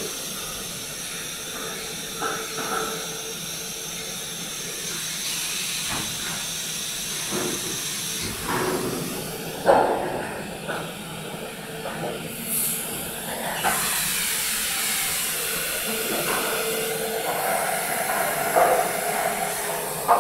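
Factory din of plastic injection moulding machines with robotic take-out arms running: a steady hiss, with scattered clanks and knocks and one louder knock about ten seconds in.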